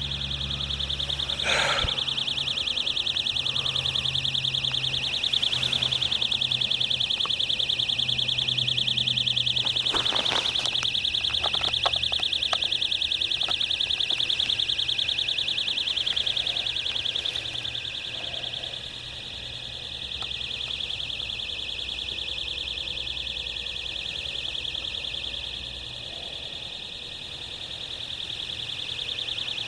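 An electrical box giving off a steady, high-pitched, very rapid electrical chirping buzz, like a cricket times 100, over a faint low hum. A few light clicks come about ten seconds in.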